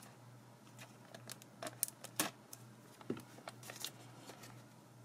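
Foil trading-card pack wrapper crinkling faintly in the hands as its snipped top is worked open, a scattering of short crackles and ticks, busiest around the middle.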